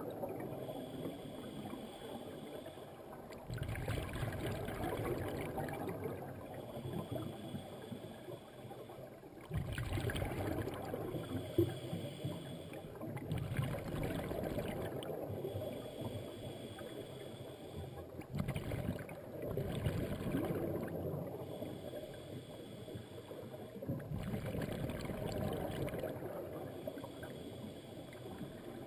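Scuba diver breathing through a regulator underwater: a quiet inhale with a thin whistling hiss alternates with a louder gurgling rush of exhaled bubbles, about one breath every four to five seconds.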